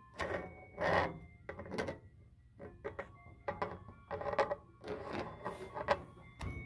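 Window blinds clattering and rustling close to the microphone as the phone is pushed between the slats: a run of irregular sharp clicks and scrapes.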